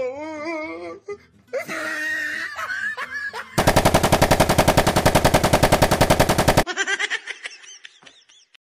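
An M249 light machine gun firing one long automatic burst of about three seconds, starting a few seconds in, with the shots coming fast and evenly at about a dozen a second.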